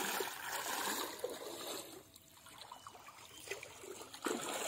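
Shallow muddy pond water sloshing and trickling as people wade through it, louder in the first two seconds, with a short sharp sound near the end.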